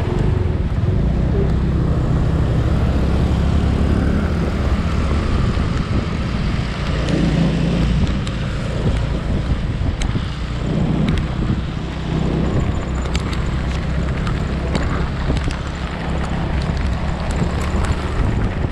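Automatic scooter engine running steadily while riding, with heavy wind noise on the microphone and scattered sharp ticks in the second half.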